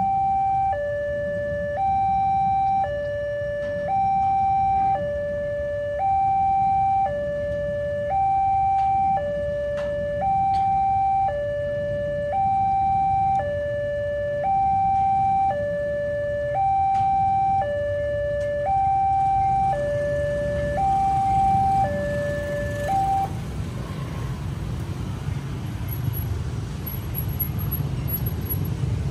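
Railway level-crossing warning alarm sounding its two-tone signal, alternating a higher and a lower tone of about a second each. It cuts off a little over 20 seconds in as the crossing clears, and the low noise of waiting motorcycles and cars grows as the barrier lifts.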